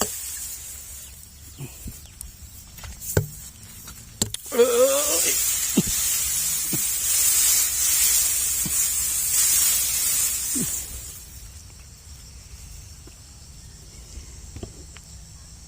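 Outdoor rice-paddy sounds: a loud hissing rustle for several seconds in the middle with a few knocks and a short voice, then insects trilling steadily near the end.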